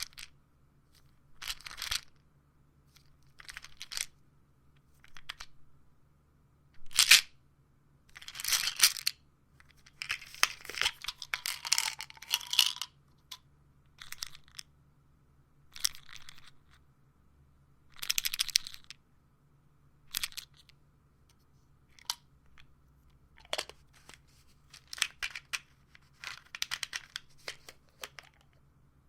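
Pills rattling in a plastic pill bottle, handled in a series of short separate shakes and sharp clicks, with a longer run of steady rattling about ten seconds in.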